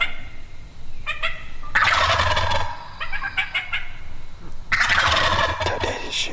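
Osceola wild turkeys gobbling: two long, loud gobbles about three seconds apart, with shorter, fainter calls around them.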